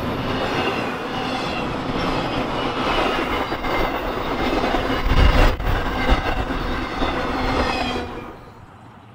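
Train cars rolling past at close range: steel wheels rumbling and clattering over the rail joints, with a wavering high squeal from the wheels. The sound falls away about eight seconds in.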